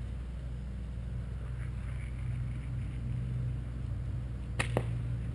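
Steady low rumble, then two sharp paintball marker shots in quick succession near the end.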